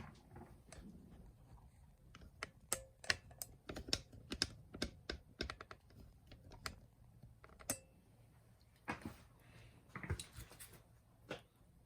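Irregular run of light clicks and taps from small hard parts being handled, thickest in the middle, with a couple of brief scraping rustles near the end.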